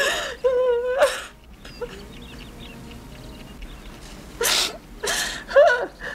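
A woman sobbing: sharp, ragged gasps for breath broken by short, wavering cries, a burst at the start and another cluster near the end.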